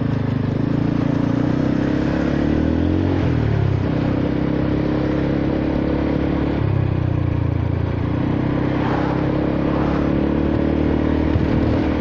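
Honda Forza 300 scooter's single-cylinder four-stroke engine and exhaust under way. The note rises and falls with the throttle: it climbs about three seconds in, drops off sharply just before four seconds, then picks up again a few seconds later.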